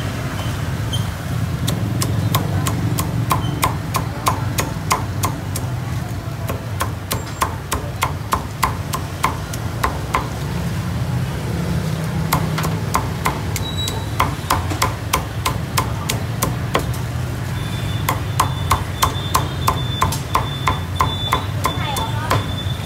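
Steel cleaver chopping roast pork on a thick round wooden chopping block: long runs of quick, sharp, even knocks, about three or four a second.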